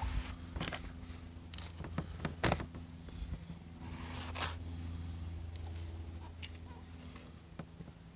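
Half Face Blades chef's knife slicing through watermelon flesh and rind on a wooden cutting board, with a few sharp knocks as the blade meets the board, about four spread over the stretch. A steady low hum runs underneath.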